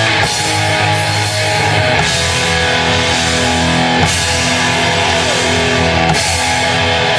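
Live rock band playing loud, heavy music, with electric guitar to the fore. The chords change about every two seconds.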